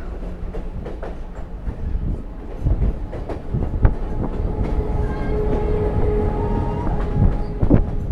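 Train rolling along the track, its wheels clicking over rail joints in an uneven run of knocks, with a faint steady whine for a couple of seconds in the middle.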